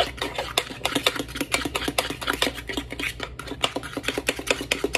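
A fork beating cornbread batter in a small metal saucepan, clicking against the pan in rapid, steady strokes, several a second, to work out the lumps.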